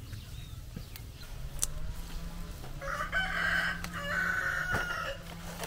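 A rooster crowing once: a long call starting about three seconds in and lasting about two seconds. A few light knocks are heard, from roots being handled.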